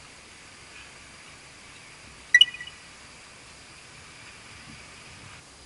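A single sharp clink with a short metallic ringing about two and a half seconds in: chopsticks knocking against a stainless steel rice pot.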